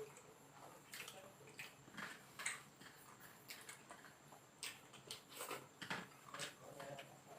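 Faint, irregular wet smacks and clicks of people chewing aloo paratha with paneer masala, a few each second.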